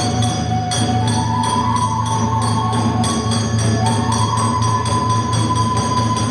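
Kagura ensemble music: a flute holds long notes over a fast, steady beat of drum and small hand cymbals, about four or five strikes a second.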